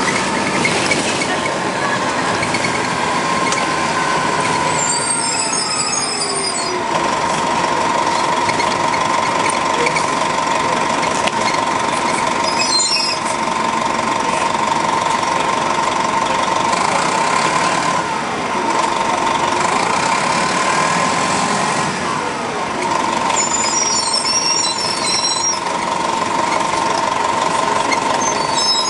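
A 1996 Nova Bus RTS's Detroit Diesel Series 50 engine and Allison automatic transmission, heard from on board, running under way with a steady high whine, the engine note falling twice as the bus slows. Brief high-pitched squeals come twice, about five seconds in and again near the end.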